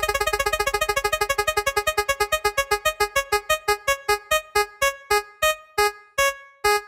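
An electronic keyboard-like tone repeating one note over and over, fast at first and then slowing steadily, the notes spacing out until they stop near the end.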